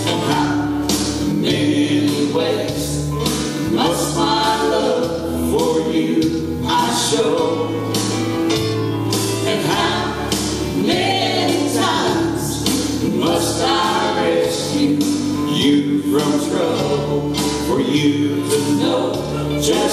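Gospel vocal trio, a man and two women, singing in close harmony over instrumental accompaniment with low sustained bass notes and a steady beat.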